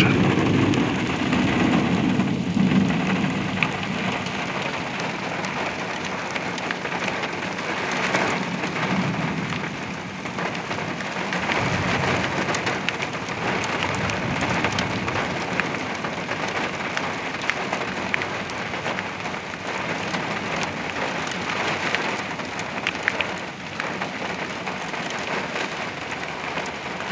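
Heavy thunderstorm rain pouring down steadily, with a low rumble during the first few seconds.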